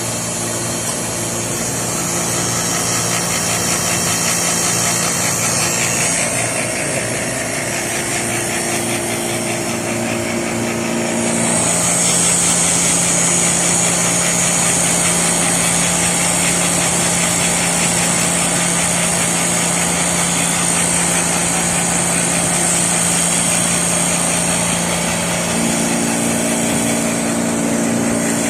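Cold room refrigeration compressor and condensing unit running steadily: a constant mechanical hum with a high hiss, which gets louder about a third of the way in and eases near the end.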